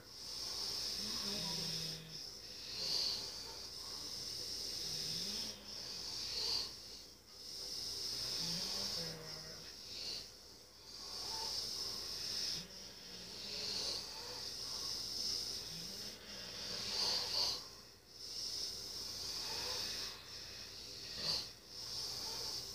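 A sleeping person snoring in a slow, regular rhythm: a short low tone on each breath, about every three to four seconds, over a steady high hiss that swells and fades with the breathing.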